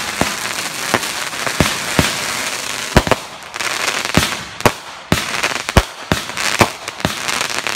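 Fireworks going off in an irregular series of sharp bangs, roughly two a second, over continuous crackling.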